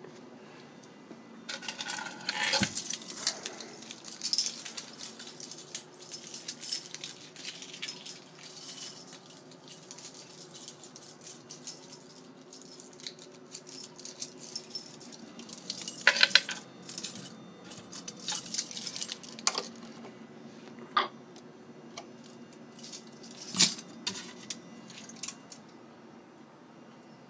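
Coins clattering and rattling in irregular bursts as a fruit machine's coin hopper is emptied, over a steady low hum. The loudest clatters come about two seconds in, around the middle and near the end.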